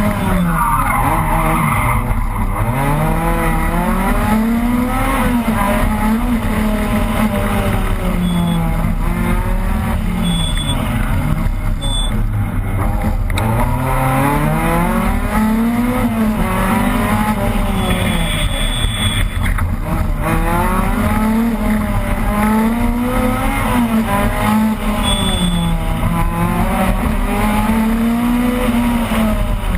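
Opel Kadett rally car's engine heard from inside the car, revving hard and dropping again over and over as the car accelerates, shifts and slows through a rally stage, its pitch rising and falling every two to four seconds.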